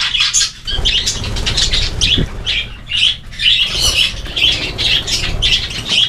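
A flock of budgerigars chattering and squawking as they feed together, with short calls following one another quickly and overlapping.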